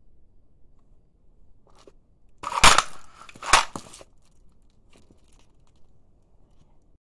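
A shoe stomping on a plastic Hulk action figure: two loud hits about a second apart, with a few smaller knocks just after.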